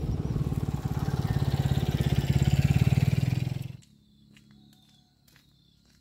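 Small motorcycle-type engine running with an even pulse, rising a little in level, then switched off abruptly nearly four seconds in, leaving faint insect chirps.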